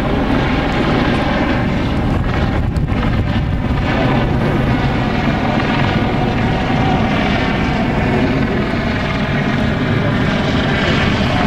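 Eurocopter EC120 helicopter flying low overhead: loud, steady rotor and turbine noise, a rush with many steady tones running through it.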